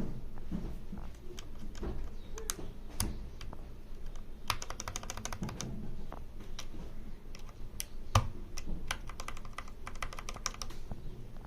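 Computer keyboard keys pressed and clicking, mostly in quick runs of rapid clicks with scattered single strokes, and one louder knock about eight seconds in.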